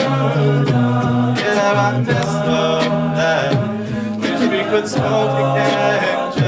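Men's a cappella group singing held chords in close harmony, with a soloist over them and vocal percussion tapping out a steady beat.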